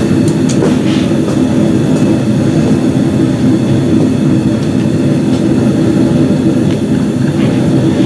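Blacksmith's forge running with a steady, loud rumble, and a few faint metallic clicks in the first second.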